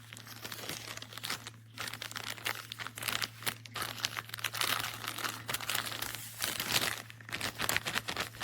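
Plastic packaging crinkling and rustling as it is handled by hand, in an irregular run of crackles, with a steady low hum underneath.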